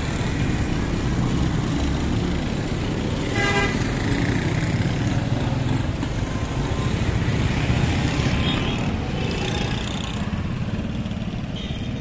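Busy street traffic, with vehicle engines running steadily. A vehicle horn gives a short toot about three and a half seconds in, and fainter brief honks follow later.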